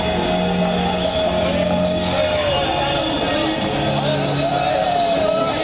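Loud music with singing, playing steadily, with shouts from people over it.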